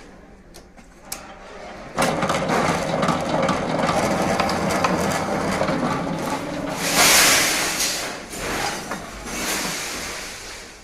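Electric wire stripping machine starting up about two seconds in and running steadily, stripping a 4 mm wire. It swells loudest about seven seconds in, then tapers off near the end.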